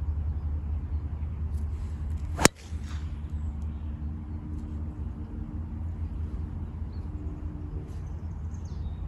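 A golf club striking the ball on a tee shot: one sharp crack about two and a half seconds in, over a steady low rumble.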